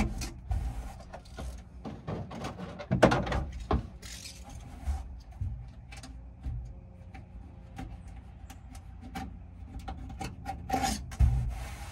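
Old, flattened weather stripping being pried, scraped and torn by hand off the underside of a pickup truck canopy's rail: irregular scraping and rubbing, with louder rough tearing bursts about three seconds in and near the end.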